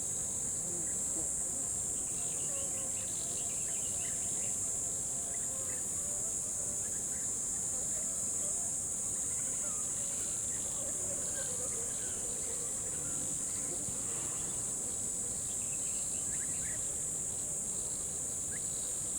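Crickets chirping in a dense, unbroken chorus, a steady high-pitched trill, with faint scattered short calls beneath it.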